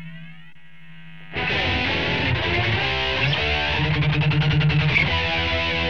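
Ibanez RG370DX electric guitar played through the Line 6 POD 2.0 amp modeller's flanger preset. A held note fades out, then about a second and a half in a new distorted passage starts, its tone sweeping as the flanger moves.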